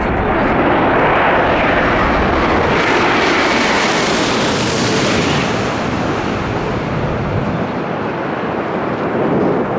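Jet airliner passing low overhead as it comes in to land. Its engine noise swells to a peak about four to five seconds in, then eases off as it moves away.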